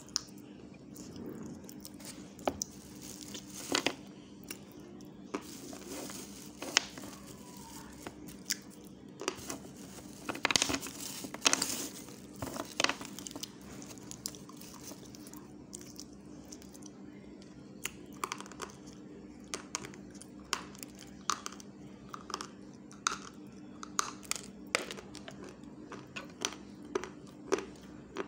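A person chewing with the mouth close to the microphone: irregular wet clicks and smacks, in a denser, louder run about ten to twelve seconds in, over a steady low hum.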